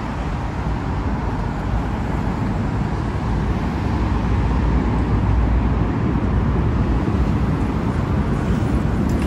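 Road traffic passing on a multi-lane street: a steady rush of car tyres and engines that swells around the middle as vehicles go by close.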